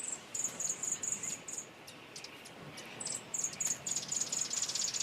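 Insects, likely crickets, chirping in rapid, evenly spaced high-pitched pulses: one run early on, a pause, then a second longer run over the last two seconds.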